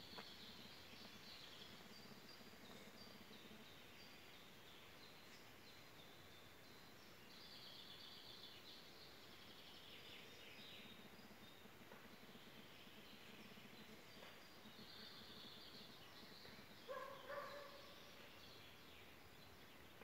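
Faint birdsong from many small birds, with short chirps and trills throughout. About three-quarters of the way in, a louder, lower call sounds twice in quick succession.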